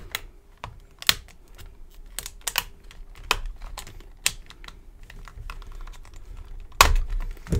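Irregular sharp clicks and taps from a hardened padlock and metal tools being handled, with a louder knock near the end.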